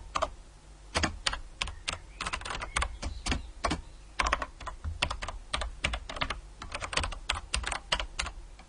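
Keyboard typing sound-effect sample: fast, irregular computer-keyboard key clicks, several a second, a little harsh, over a steady low hum.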